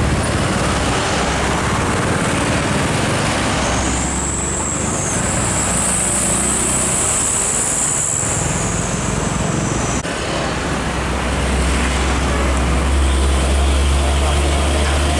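Heavy diesel trucks passing on a highway, with engine rumble and tyre noise. A high thin whistle runs for several seconds in the middle, and the low engine rumble grows strong in the second half as a truck passes close.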